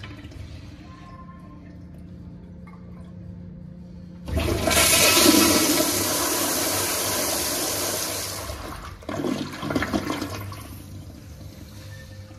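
Late-1980s Kohler Wellcomme flushometer toilet flushing: a faint swirl of water, then about four seconds in a sudden loud rush of water that lasts about four seconds. It tapers into a couple of gurgles as the bowl drains, and then settles to a quieter swirl.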